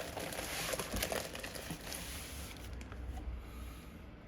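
A diamond-painting canvas with its plastic cover film being rolled up by hand: crinkling and rustling with a few light taps, dying away about two and a half seconds in.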